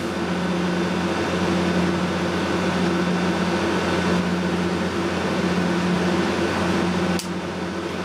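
Steady electrical hum with a hiss from mains-powered electrical equipment, with one short click about seven seconds in.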